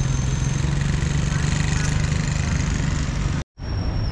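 Motorbike engine running steadily with a low hum and road noise. It cuts off abruptly about three and a half seconds in, and outdoor wind noise follows.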